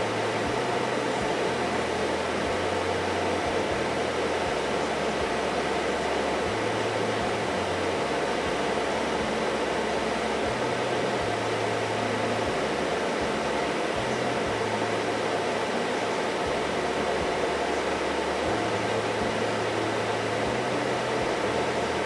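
Daihatsu Move L175S's air conditioning running at idle: a steady rush of air from the blower fan, with a low hum underneath that shifts up and down between a few pitches at irregular intervals. The system is cooling at idle.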